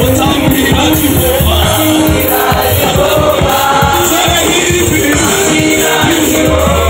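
Gospel praise song sung by boys' voices into microphones over a live band with drum kit and keyboard, keeping a steady beat.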